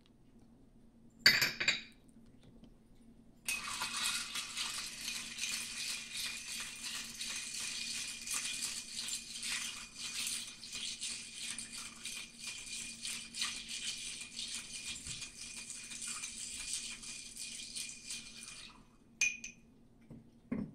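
Ice cubes rattling and clinking in a glass mixing glass as a cocktail is stirred with a bar spoon, a steady run of clinks lasting about fifteen seconds that starts and stops abruptly. A single sharp knock or clink comes about a second in, before the stirring.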